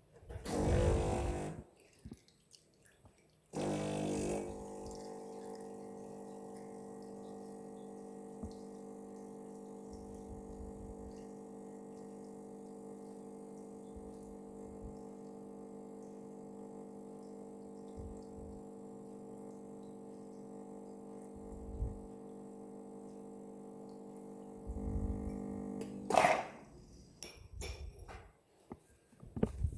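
Espresso machine's vibratory pump humming steadily for about twenty seconds as a shot is pulled. There is a short noisy burst just before the pump starts and another as it stops.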